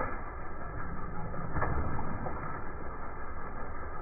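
Car tyre creeping over water-filled long balloons with a steady low rumble, and a softer pop with water splashing about a second and a half in as one balloon bursts.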